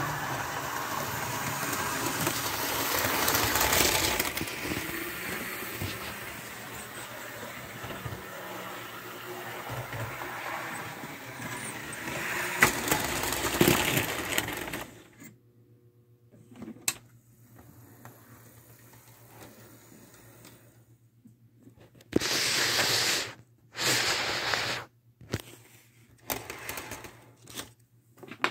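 Model train running along the track, a steady rumbling clatter of wheels on rail that stops suddenly about halfway through. After that only a low steady hum with a few clicks, and several short loud rustling bursts near the end.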